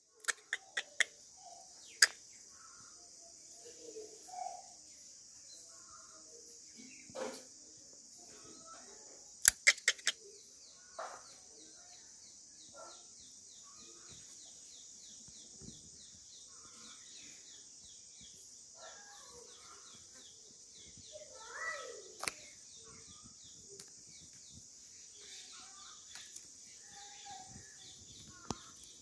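Outdoor garden ambience: a steady high-pitched drone throughout, with scattered faint bird calls. A few sharp clicks cut through it, in a quick run near the start and again about ten seconds in.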